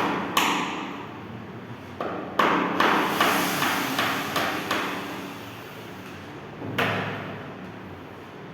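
Hammering: a few single knocks, then a quick run of about eight blows at roughly three a second, and one last knock near the end, each with a short ringing tail.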